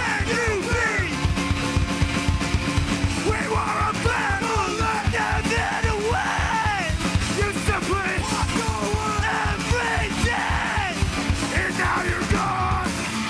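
Live hardcore punk band playing loudly: distorted electric guitars and bass over a fast, pounding drumbeat, with a vocalist shouting into the microphone.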